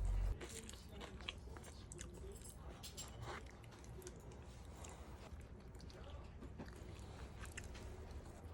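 Close-up eating sounds: a person chewing and biting into food, with scattered small crunches and moist clicks.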